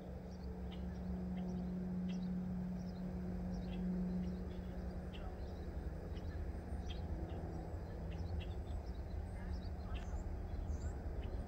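Small birds chirping in short, scattered calls over a steady low rumble and hum, strongest in the first few seconds.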